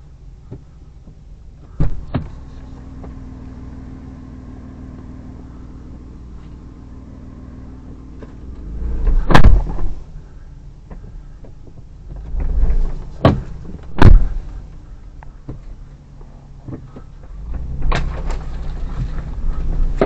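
Cabin sound of a Hyundai Terracan's 3.5 V6 pulling at low speed over a snowy forest track, a steady low hum with swells of rumble. Several sharp, loud thumps and knocks break through it, the two loudest about nine and fourteen seconds in, as the body jolts over the uneven ground.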